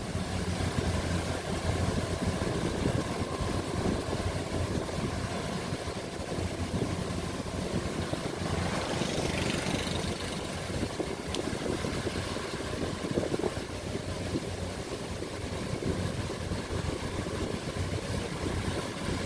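Rice combine harvester's engine running steadily as a low, even drone.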